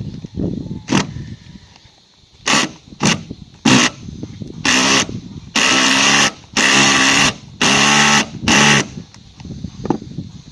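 Power drill driving roofing screws, run in a string of bursts: a few short ones, then longer runs of about a second each with a steady motor whine.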